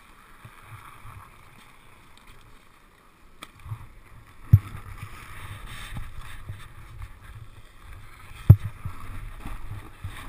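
Snowboard sliding over packed snow: a low rumble of the board on the snow starts about four seconds in, with two sharp knocks about four seconds apart.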